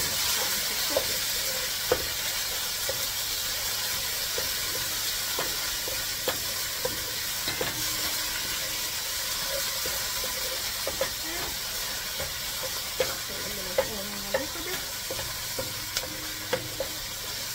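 Chopped onion sizzling as it fries in a metal pot, stirred with a wooden spatula that scrapes and ticks against the pot now and then.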